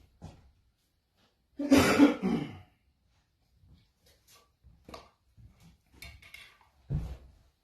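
A person coughs once, loudly, about two seconds in. After it come scattered faint taps and a soft low thump near the end.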